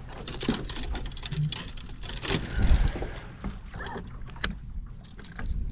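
Bass boat on the water: a steady low rumble with scattered clicks and knocks of gear and movement on deck, one sharp click near the end.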